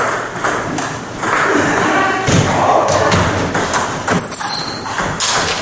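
Table tennis rally: the ball knocking off the rackets and bouncing on the table in a quick run of sharp clicks.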